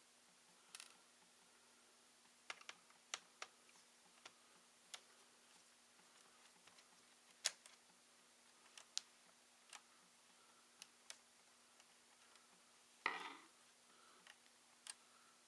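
Faint, scattered small clicks and ticks from a ThinkPad T61 laptop's parts and casing being handled during disassembly, with one short scrape near the end.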